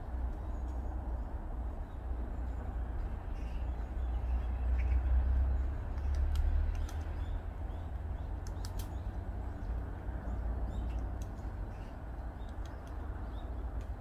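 Woodpecker pecking at a tree: scattered, irregular single sharp taps, not a drumming roll, over a steady low rumble that swells a few seconds in.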